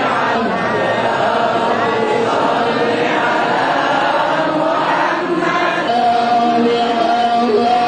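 A group of men chanting a devotional Maulid recitation together, one voice leading over a microphone. From about six seconds in, one voice holds a long steady note over the others.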